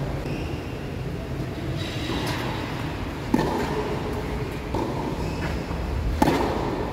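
Tennis ball being struck during play: two sharp racket hits about three seconds apart, with fainter knocks between them, over a steady low rumble.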